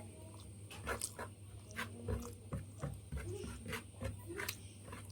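Close-up mouth sounds of someone eating rice and fish: irregular wet lip smacks and clicks of chewing, with a few short squeaky mouth noises a little past the middle.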